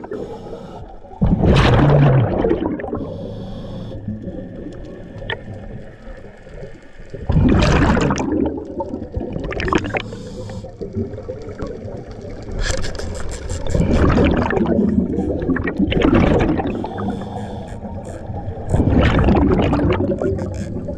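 Scuba regulator bubbles heard underwater: a diver's exhalations come as loud bubbling rushes about every six seconds, with quieter stretches between breaths.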